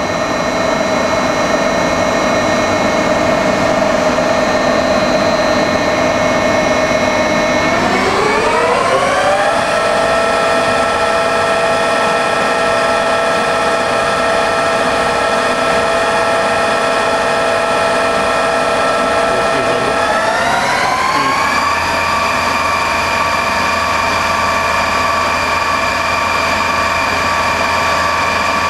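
Spindle of a Cincinnati 750-20 VerciPower milling machine running on its 50 hp Indramat AC variable-speed drive, giving a steady whine. The whine rises in pitch twice, about eight and twenty seconds in, as the spindle speed is turned up, and settles at each new speed.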